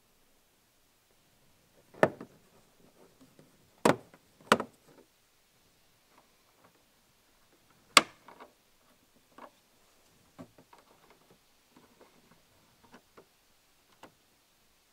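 Sharp plastic snaps as a trim access cover on a Hyundai i30 tailgate is pried loose with a plastic pry tool, three strong clicks within the first few seconds. About eight seconds in comes one loud click at the rear light's bulb holder and wiring connector, followed by lighter plastic clicks and rattles as the parts are handled.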